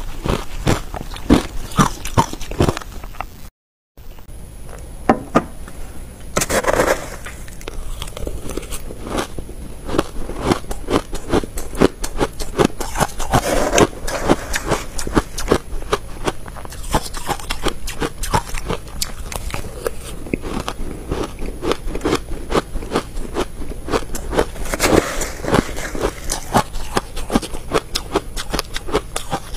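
Close-up crunching and chewing of frozen shaved ice coated in matcha powder, a dense run of crisp crunches, with a spoon scraping and scooping the ice. A brief silent break comes about four seconds in.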